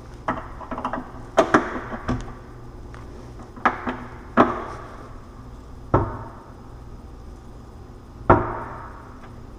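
Wooden kitchen cabinet doors knocking shut against the cabinet frame, about seven sharp knocks spaced a second or two apart. The doors are being closed to check their alignment after hinge adjustments.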